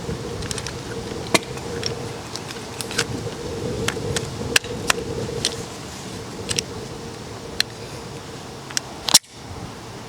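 Irregular sharp clicks and knocks, about eighteen, over steady wind noise and a hum. The loudest comes near the end.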